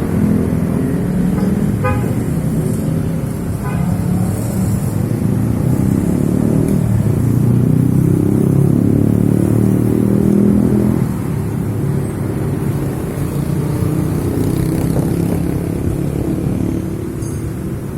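Strong storm wind gusting, buffeting the microphone with a loud, low rumble that swells and eases, strongest in the middle.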